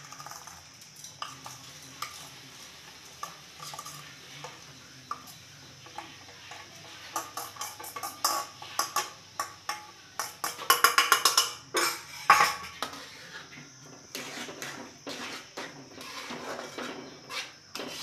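Boondi being scraped out of a steel bowl into a metal kadhai of sugar syrup: scattered clinks and scrapes of hand, spoon and bowl rims against the metal, with a rapid run of loud clinks about eleven seconds in. Near the end comes the steady scraping of a ladle stirring the boondi through the syrup.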